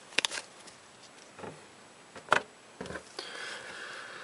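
Trading cards and a foil booster pack being handled: a few light taps and clicks, then a soft rustle starting about three seconds in.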